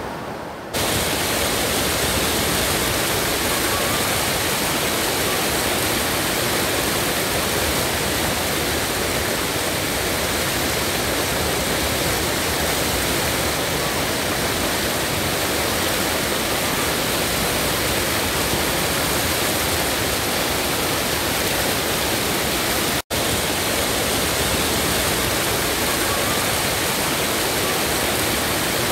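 Steady rush of river water spilling over a low concrete weir. It drops out for an instant about 23 seconds in.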